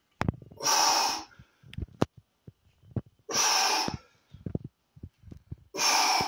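A man's forceful exhalations, three sharp breaths about two and a half seconds apart, in time with his repetitions of a resistance-band squat. Small knocks and rustles come between the breaths.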